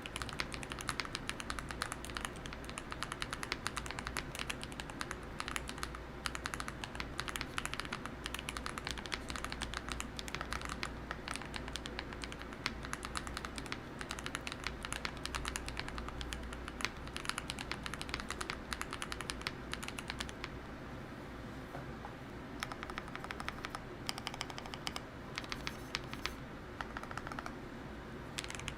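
Steady fast typing on a GMK67 mechanical keyboard with lubed Akko Cream Blue V3 Pro tactile switches, PBT Cherry-profile keycaps and foam and tape mods: a dense run of keystroke clacks. The strokes thin out and get lighter for several seconds about two-thirds of the way through, then pick up again near the end.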